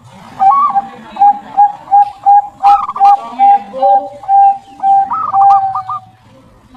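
Zebra dove (perkutut) cooing: a run of about a dozen short staccato coos, about three a second, ending on a longer drawn-out note. A few higher, wavering calls sound over it three times.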